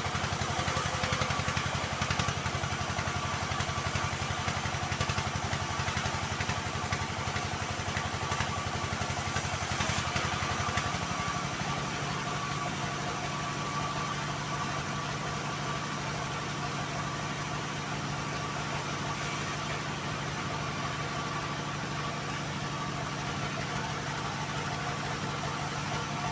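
Engine driving a homemade band sawmill, running steadily throughout. It is louder and rougher for the first ten seconds, then settles into a smoother, slightly quieter drone.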